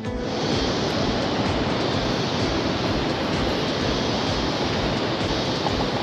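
Steady, even rush of falling water, cutting in abruptly as the music stops.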